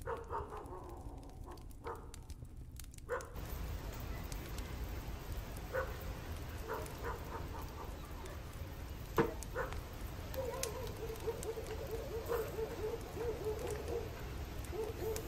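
Skewered sausages sizzling over a charcoal grill, with occasional sharp crackles. An animal calls repeatedly in the background, more steadily in the second half.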